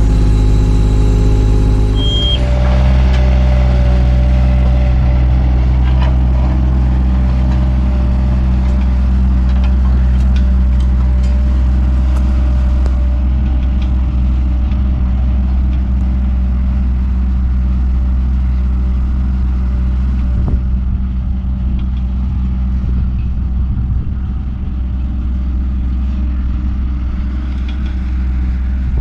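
Takeuchi TB216 mini excavator's diesel engine running steadily as it works, with a few faint clicks over it. A different steady sound, likely background music, stops abruptly about two seconds in.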